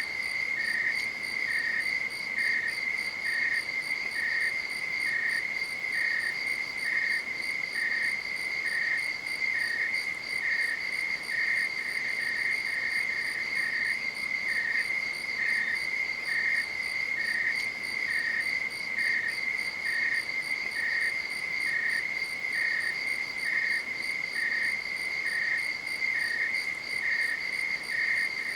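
Night insects chirping: a steady, unbroken high trill with a second, slightly lower chirp repeating evenly about twice a second.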